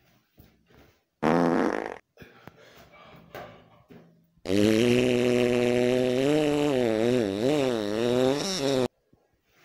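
Comic fart sounds. A short, loud fart comes about a second in, and a long wavering fart lasts about four and a half seconds before cutting off abruptly. Faint rustling can be heard between them.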